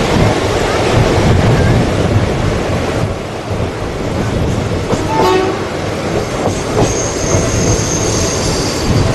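Express passenger train of ICF coaches running past at about 95 km/h: a loud, steady rush of wheels on rail with rail-joint clatter. A thin high squeal joins from about seven seconds in.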